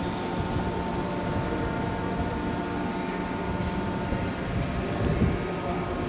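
Hydraulic test pump running steadily while a drilling rig cylinder is held under pressure for a pressure test. The pump gives a continuous mechanical drone with a low hum. A higher steady whine drops away about two-thirds of the way through.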